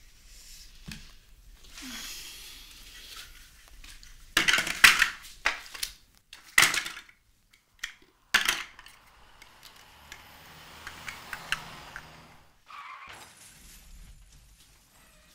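Hard household objects clattering in a run of sharp crashes, the loudest cluster about four to five seconds in and two more single crashes soon after, followed by a softer rustling with small clicks.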